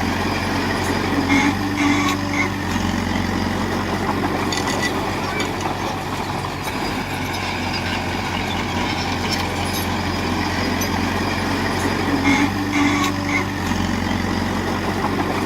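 Heavy diesel engine of earthmoving machinery running steadily under work. About a second in and again near the end, its note briefly changes, with a short held tone and a few higher chirps.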